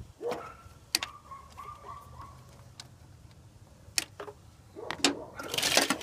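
Side cutters snipping through car wiring-harness ground wires: single sharp snips about a second, four and five seconds in. Near the end the loose wires and connectors rustle and clatter as the harness is handled.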